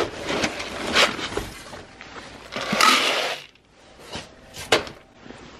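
A plastic scoop digging into a woven sack of chicken feed: the bag rustles and the feed pellets shift, with a longer rush of feed about three seconds in and a few sharp knocks of the scoop.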